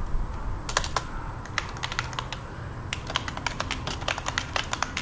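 Typing on a computer keyboard: a short, scattered run of keystrokes about a second in, then a quicker, denser run of clicks from about three seconds in.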